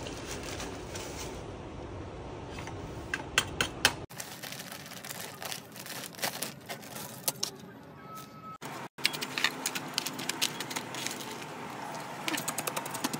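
Potting-soil handling: a plastic bag rustling, loose dry soil pouring and crackling into a plastic plant pot, and a metal trowel scraping and clicking in the soil. Many short sharp clicks over a steady rustle, breaking off abruptly about four and nine seconds in.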